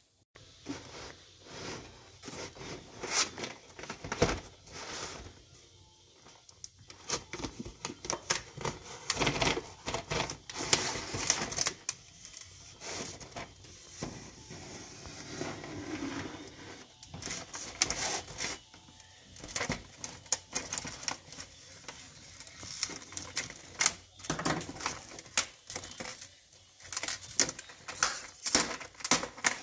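Stiff clear plastic clamshell packaging crackling and clicking as it is handled, with irregular sharp clicks throughout.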